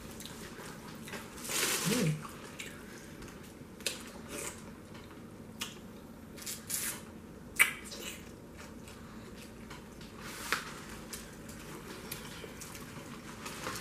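Close-up wet eating sounds of a seafood boil eaten by hand: a long sucking slurp about two seconds in, a short hummed "mm", then scattered sharp clicks and squishes as crab and shrimp are picked from sauce, peeled and chewed.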